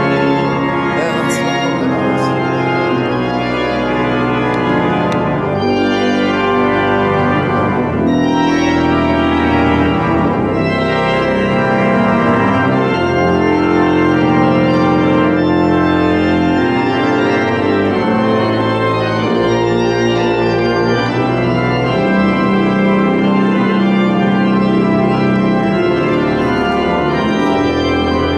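Church organ played on a two-manual console, improvising slow sustained chords over deep held bass notes, the chords changing every few seconds.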